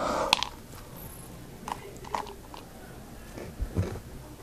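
A person biting into and chewing crunchy hot and spicy cheese snacks close to the microphone. There is a loud crunch at the first bite, then a few short crunches as he chews, and a low bump near the end.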